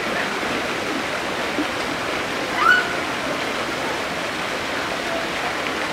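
Steady rush of running water, like a stream or small waterfall. A short high chirp cuts through about halfway through.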